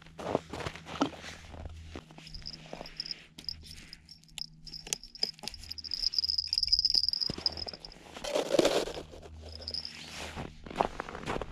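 Handling sounds of setting a winter pike tip-up over an ice hole, with clicks and rustles of gloves, clothing and snow. A thin, high whir, first pulsing and then steady, is heard as line pays off the tip-up's spool, with a louder rustle near the end.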